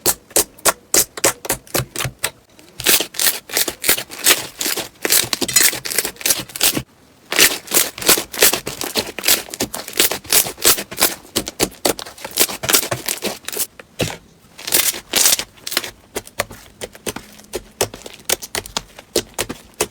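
Slime being squeezed and poked by hand, giving rapid crisp clicks and pops as air pockets burst. The clicks come in fast runs with brief pauses about 7 and 14 seconds in.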